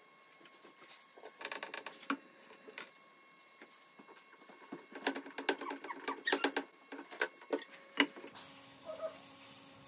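Screws being turned by hand with a screwdriver into oak end grain to fasten rubber feet: irregular clusters of small clicks and squeaks as the screws bite into the wood, thickest about a second and a half in and again from about five to seven seconds in.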